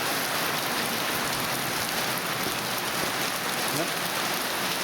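Heavy monsoon rain pouring steadily, a dense even hiss of drops hitting the ground and surfaces.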